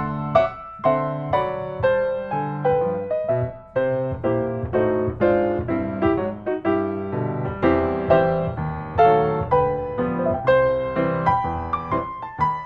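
Background piano music: a gentle melody over sustained chords.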